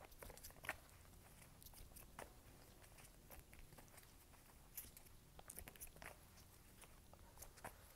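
Near silence with faint, scattered soft clicks and rustles of a tarot deck being shuffled by hand.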